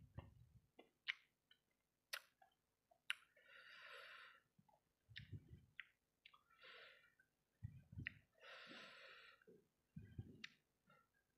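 Close-up eating sounds of someone chewing sauce-coated fried rice balls: sharp wet mouth clicks, a few soft low thumps, and two long breaths about a second each.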